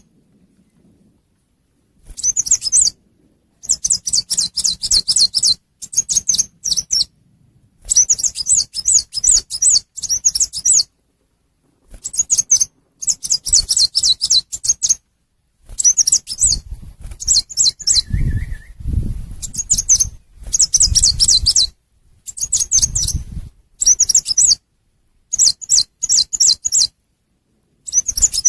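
Lure recording of a chim sâu xanh, a small Vietnamese songbird, giving bursts of rapid, high-pitched chirping about a second or two long, repeated with short pauses. A low rumble sits under several of the bursts around the middle.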